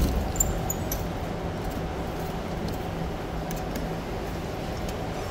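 Claw crane machine's winch motor humming steadily as the claw lowers on its cable toward the plush toys, with a click as it starts. The hum stops about four seconds in.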